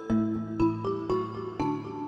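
Background music: a gentle tune of struck, ringing notes, about two new notes a second.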